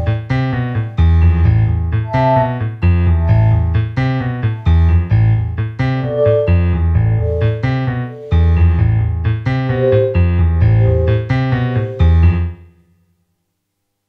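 Electric keyboard playing chords over a deep bass line. It fades out and falls silent near the end.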